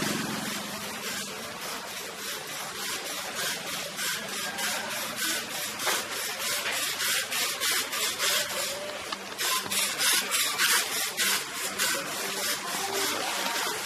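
Rhythmic rasping and rubbing handling noise, about three strokes a second, from a handheld camera jostled with each step while walking, over faint street background.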